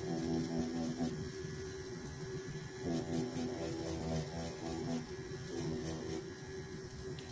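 Tattoo machine buzzing steadily while shading practice skin with short flicking strokes. A rougher, ticking layer comes and goes three times over the steady hum.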